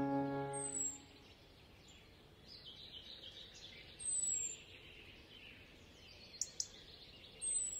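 A held music chord fades out about a second in. Small birds then chirp faintly, with a thin, high, falling whistle that comes back every few seconds and two short clicks near the end.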